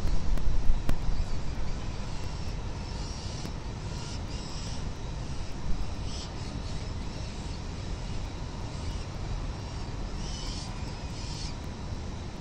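Steady low rumble of wind and city noise on a peregrine falcon nest-cam microphone, louder for the first couple of seconds, with a few faint high peeps from the falcon chicks being fed.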